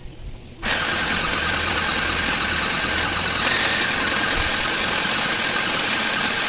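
Small electric mini sewing machine running steadily as it stitches a seam through mask fabric, starting up about half a second in.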